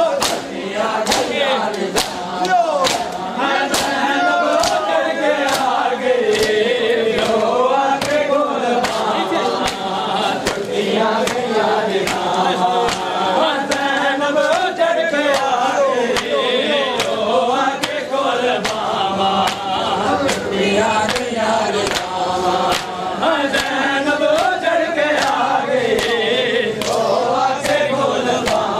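Men chanting a noha in unison, cut by the sharp slaps of hands striking bare chests in matam at a steady beat.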